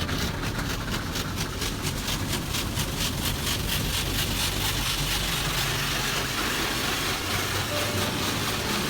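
Automatic car wash machinery running, with water spray and a motor hum. A rapid regular swishing, about five a second, fades after about five seconds into a steady hiss of spray.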